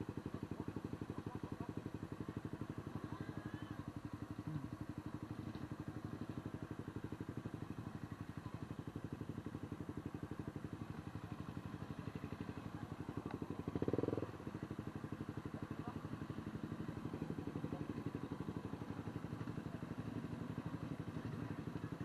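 Motorcycle engine running steadily while riding, with a short louder sound about fourteen seconds in.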